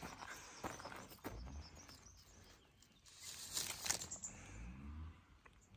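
Faint rustling and handling noise from a hand-held camera moving among potted plants, with scattered soft clicks and a brief louder rustle a little before the four-second mark. A faint low hum rises and falls twice.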